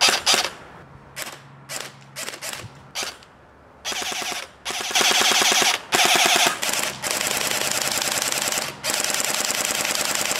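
Barra 400E electric full-auto .177 steel BB rifle firing: a string of single shots in the first three seconds, then long full-auto bursts of rapid, evenly spaced shots from about four seconds in.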